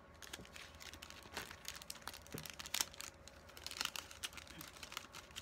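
Clear plastic zip bags crinkling and paper cutouts rustling as they are handled, in short irregular crackles.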